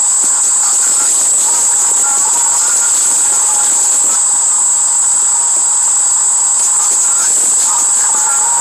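A loud, steady high-pitched hiss, with faint, muffled tones flickering underneath it.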